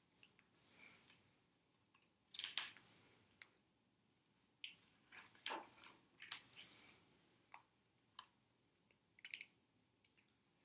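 Quiet, scattered clicks and short rustles of handling, with the paper rustle of a picture book's page being turned about halfway through.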